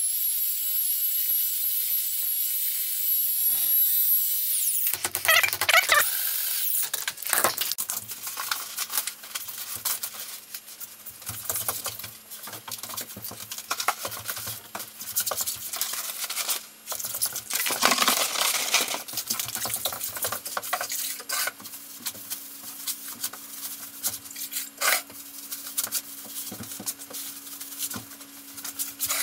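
Sped-up work sounds: an electric drill with a paddle mixer whines as it mixes thinset in a bucket, stopping about four or five seconds in. After that comes a jumble of quick clicks, knocks and scrapes of hands and tools on a plywood floor as Ditra uncoupling membrane is laid, over a faint steady hum.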